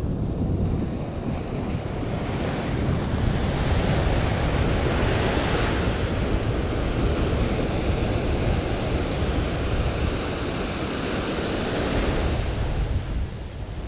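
Ocean surf breaking and foamy wash running up the sand around the angler's feet, with wind rumbling on the microphone. The wash swells louder a few seconds in and again near the end.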